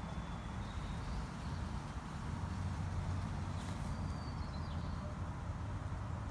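Steady low background rumble with no clear event, and a faint click about three and a half seconds in.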